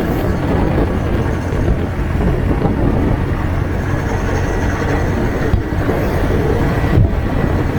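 Motorcycle on the move: steady engine and road rumble with wind noise on the microphone.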